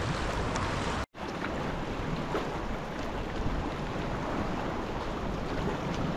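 Sea water lapping and splashing around a kayak, with wind noise on the microphone. The sound cuts out abruptly for a moment about a second in, then resumes.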